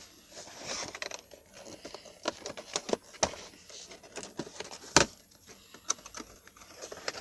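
Cardboard model-plane box being handled and its end flap worked open: scattered light taps, clicks and scrapes of cardboard under the fingers, with one sharper knock about five seconds in.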